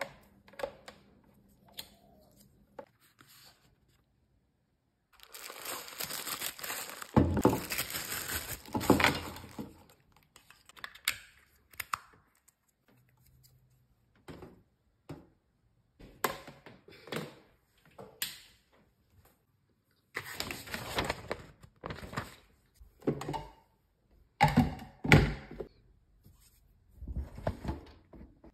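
Hands handling the parts of a jug blender: stretches of crinkling and rustling, with knocks and clicks as pieces are set down and fitted together, and short quiet gaps between.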